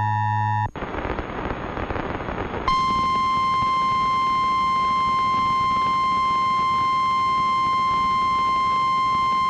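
An Emergency Alert System two-tone attention signal cuts off less than a second in, followed by about two seconds of radio hiss. Then a single steady, loud NOAA Weather Radio 1050 Hz warning alarm tone starts and holds.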